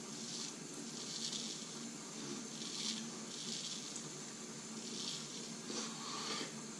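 Dovo 6/8 straight razor scraping through lathered stubble on the neck in a series of short strokes, each a faint rasping hiss.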